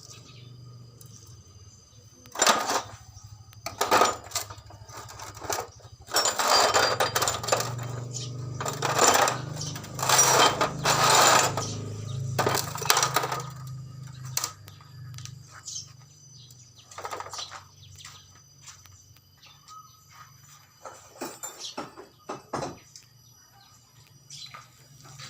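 Bursts of metallic clattering and scraping, loudest and most frequent in the first half, over a low steady hum.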